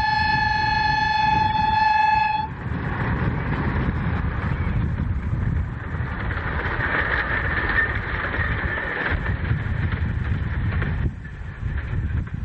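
A miniature railway locomotive's whistle sounds one long steady note, then stops about two seconds in. A rushing noise with a low rumble follows and cuts off suddenly near the end.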